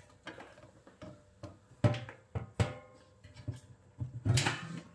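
Clicks and metallic clanks from the red handle and sheet-metal door of a fused disconnect switch being worked open: a few sharp knocks about two seconds in, one with a short metallic ring, then a longer clatter near the end as the cover swings open.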